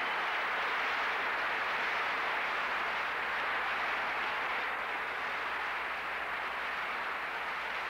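A large audience in a big hall applauding, a steady dense sound of many hands clapping.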